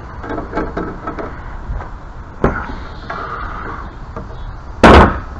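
Small clicks and taps of metal pipe parts being handled, a sharp knock about halfway through, and a loud bang near the end.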